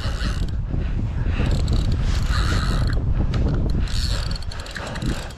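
Spinning reel being cranked against a hooked salmon, its gears whirring and clicking under load, over a low rumble, with the angler's heavy panting breaths.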